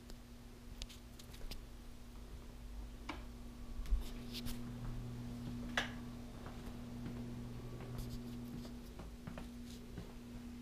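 Handling noise from a handheld camera being carried through a house: light, irregular clicks and taps, the loudest about four seconds in and just before six seconds, over a steady low hum.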